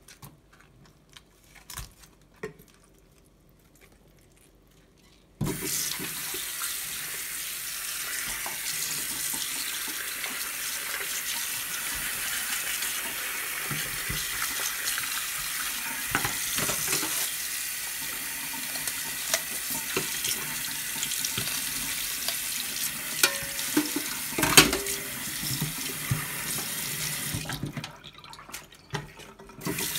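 Kitchen tap running into a stainless steel sink while raw fish pieces are rinsed under it. The water comes on suddenly about five seconds in and shuts off near the end, with a few sharp knocks against the sink along the way; before and after, only soft handling clicks.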